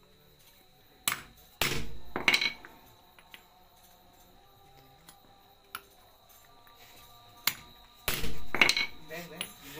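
Hammer blows driving a gear onto its keyed shaft in a marble cutter's gearbox, with the assembly braced on a steel pipe, to seat the gear against its retaining ring. Sharp metallic strikes with a short ring come in two groups of about three, one about a second in and another near the end.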